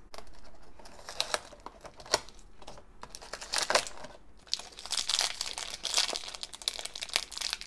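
A crinkly plastic blind-bag wrapper being crumpled and opened by hand: irregular crackling that grows busier over the last few seconds.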